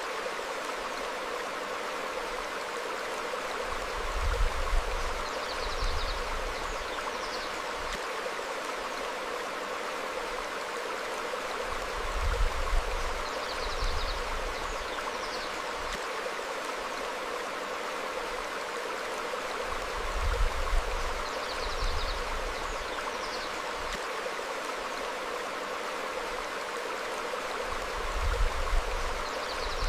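Stream flowing steadily over rocks, with low rumbling swells of about a second that come back every eight seconds. Faint short high bird chirps sound a few times, repeating on the same eight-second cycle.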